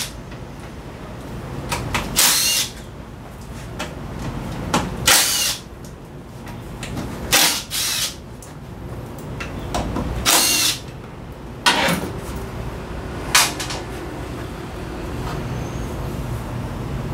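Handheld power tool, like a drill or driver, run in short bursts of under a second, about eight times, over a steady low hum.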